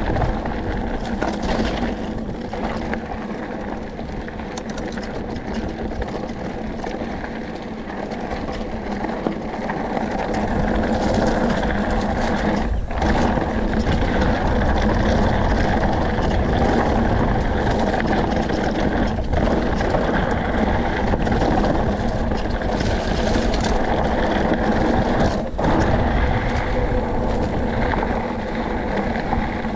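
Mountain bike rolling fast downhill over a loose, rocky dirt trail: a steady rush of wind over the camera microphone mixed with tyre rumble on gravel, getting louder about ten seconds in as the speed picks up.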